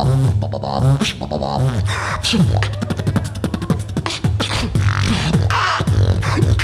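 Beatboxing into a handheld microphone: a held low bass tone with sliding vocal sweeps over it, cut by rapid kick, snare and hi-hat sounds made with the mouth.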